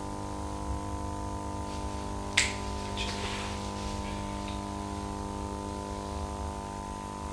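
A steady electrical hum made of several pitches, with one sharp click about two and a half seconds in and a fainter one just after.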